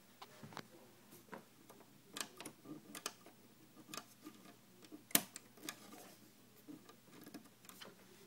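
Faint, irregular clicks and taps from a hand working the controls of a Pioneer DJM-500 DJ mixer, whose on/off switch is broken, with the sharpest click about five seconds in.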